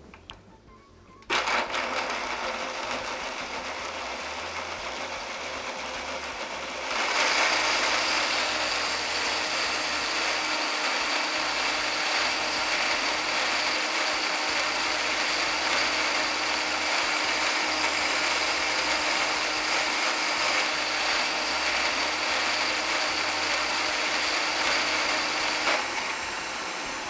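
Countertop blender starting about a second in and pureeing a thick chickpea and water mixture, running steadily, then getting louder with a steady whine about seven seconds in, and winding down near the end.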